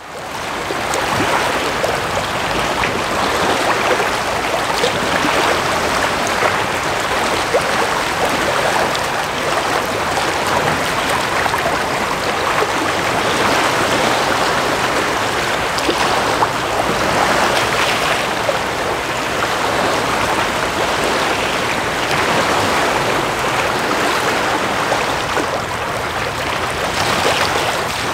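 Steady rush of water, small waves washing and lapping, swelling and easing now and then.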